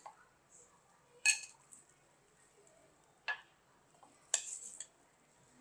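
Metal spoon clinking against a glass jug and a ceramic bowl while sauce is spooned between them: three separate clinks, the last one longer.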